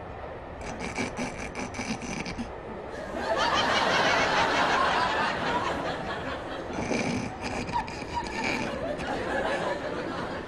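Audience laughter, swelling loudly about three seconds in and dying away, with shorter bursts of chuckling before and after.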